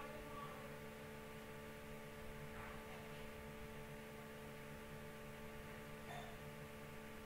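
Low, steady electrical hum made of several steady tones, with two faint brief sounds about two and a half and six seconds in.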